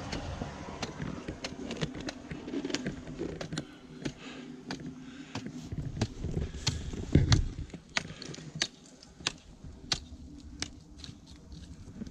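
Boots crunching and scraping in snow as someone climbs, in irregular crunches about one or two a second, with a heavier thud about seven seconds in. A faint rush of running water under the ice sits beneath them in the first few seconds.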